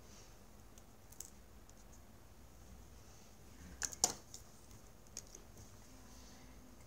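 Small clicks and taps of a fountain pen and objects being handled on a desk, loudest a sharp double click about four seconds in.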